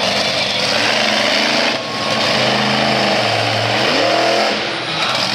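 Virginia Giant monster truck's engine revving up and down as it drives, its pitch sinking low about three and a half seconds in and then climbing sharply.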